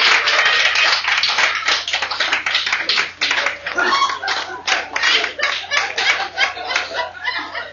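Live audience applauding, heard through 8-track tape hiss. The clapping is dense at first and thins to scattered single claps over the last few seconds.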